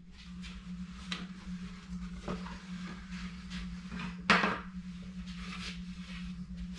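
Knocks and light clatter of a shelf board and its brackets being handled and carried, with the loudest knock about four seconds in, over a steady low hum.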